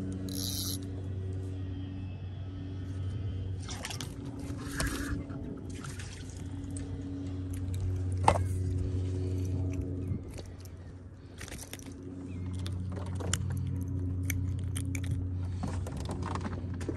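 A motor's steady low hum, easing off for a couple of seconds past the middle, with water sloshing against the boat and scattered knocks and rattles of gear, including a sharp click about eight seconds in.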